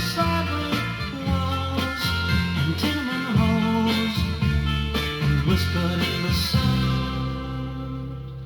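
1960s rock band playing an instrumental passage with guitar, bass and drums, with no singing; the music gets quieter over the last second or so.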